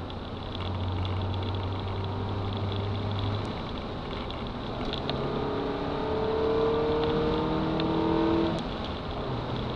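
Honda Civic's D15B7 1.5-litre four-cylinder engine with a cone intake filter, heard from inside the cabin. It runs with a steady drone at first, then about five seconds in it pulls hard with the pitch rising steadily, and near the end the rise cuts off and the engine settles to a lower, steady note.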